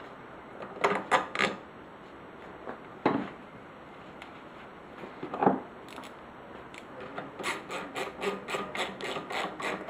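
Bolts being fitted into a Mercury outboard's water pump housing: a few separate metal clicks and rubbing in the first half. From about seven seconds in comes a steady run of quick clicks, about three a second, as a bolt is wound down with a ratchet.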